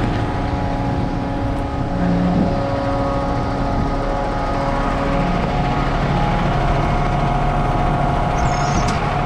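Concrete mixer truck's diesel engine running steadily at raised revs to drive the turning drum as the concrete load discharges. The engine pitch shifts slightly about six seconds in.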